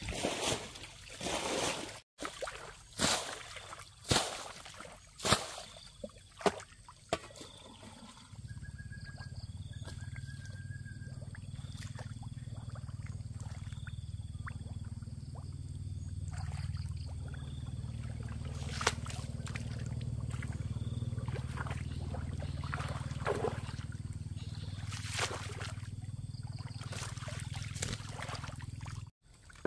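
Shallow pond water splashing and sloshing in a run of separate splashes; about eight seconds in, a steady low drone starts and runs on, with short high chirps above it.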